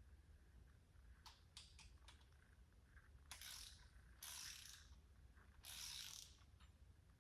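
Faint ratchet wrench clicking: a few single clicks, then three short runs of ratcheting as cylinder head bolts are run down snug.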